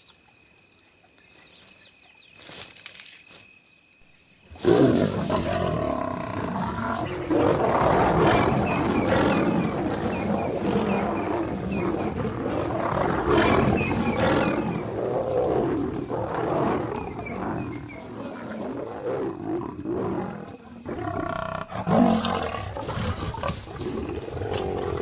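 Crickets chirping steadily in the night, then about four and a half seconds in, lions break into loud, continuous growling and roaring: a nomad male lion clashing with two lionesses defending their cubs.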